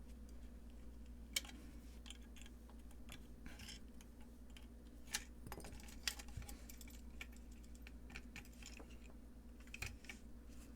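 Scattered light clicks and taps of small metal hardware and tools being handled while assembling a guitar effects pedal kit, over a steady low hum.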